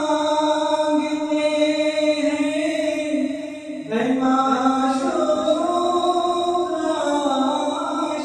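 A man singing a naat, a devotional song, in long drawn-out notes. There is a short break about four seconds in, then a new phrase begins.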